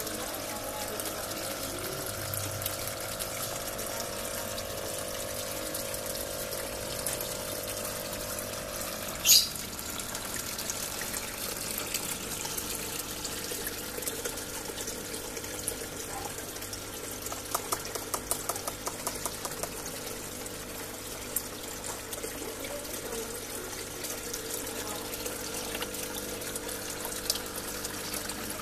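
Water splashing and trickling into a small fish pond from a pump-fed filter, over the steady hum of a water pump. A single sharp click about nine seconds in.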